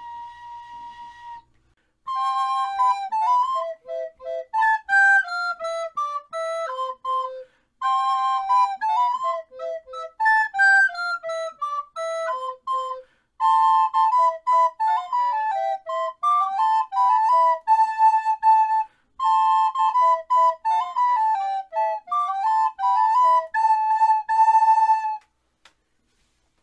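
Background music: a traditional folk tune played on flutes in two parts, in phrases with short breaks, ending about 25 seconds in. At the start, a single held note stops after about a second and a half.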